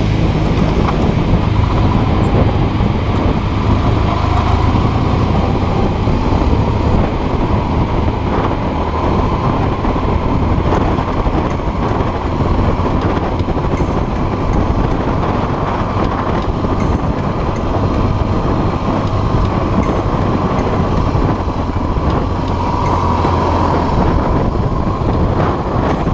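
Motorcycle engine running steadily at modest road speed, mixed with wind noise on the microphone.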